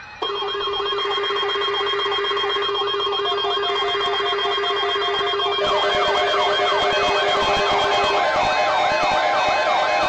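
Weather-radio emergency alert tones sounding together: steady alarm tones start just after the beginning, with a siren-like sweep repeating several times a second over them. About six seconds in more tones join and the alarm gets louder.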